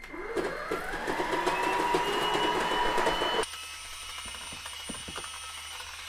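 Dibea cordless stick vacuum switching on: the motor spins up with a rising whine, then runs steady. About halfway through it drops suddenly to a quieter steady whir with a thin high whine.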